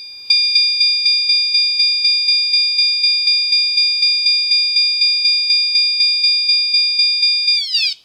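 System Sensor SpectrAlert Advance CHSW fire alarm chime on its low-volume 'four chimes a second' setting: an electronic bell-like chime of several pitches struck about four times a second. Near the end the chime slides down in pitch and stops as the unit powers down.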